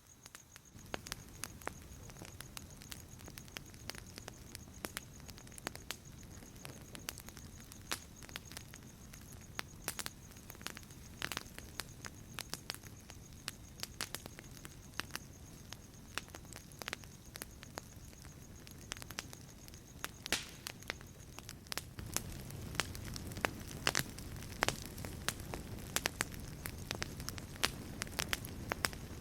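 Campfire crackling: irregular sharp pops over a low rush, which grows louder about two-thirds of the way through.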